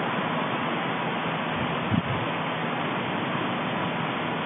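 Steady rushing hiss, even throughout, with one brief low thump about two seconds in.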